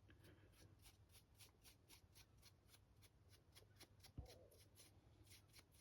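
Faint, quick scratching of a stiff dry brush flicked over the raised surfaces of a 3D-printed figure, about five or six strokes a second, with one soft knock about four seconds in.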